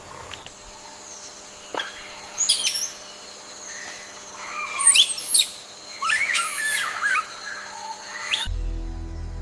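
High, sliding chirps and squeaks from an animal in several short bursts, the loudest about halfway through. Background music comes in near the end.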